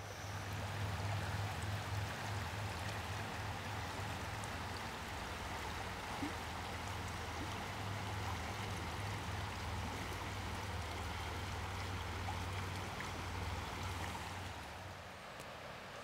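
Shallow, rocky river flowing over stones and around boulders, a steady, even rush of water that fades out near the end.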